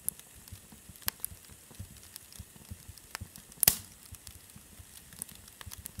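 Wood fire crackling: scattered sharp pops and snaps over a faint low rumble, the loudest pop about three and a half seconds in.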